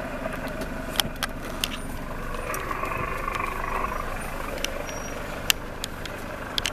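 Safari vehicle's engine running steadily, with a few sharp clicks scattered through.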